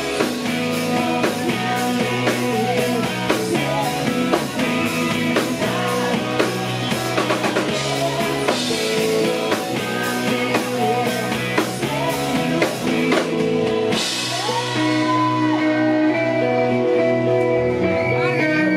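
Live rock band playing with sung lead vocals, two electric guitars, bass and drum kit. About fourteen seconds in the drums stop and the guitars ring on in held chords while the singer draws out long notes.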